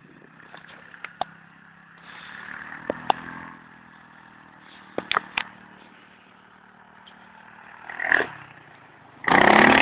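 ATV engine running some way off, faint and swelling a little as it goes, with a few sharp clicks. Near the end there is a sudden loud rush of noise.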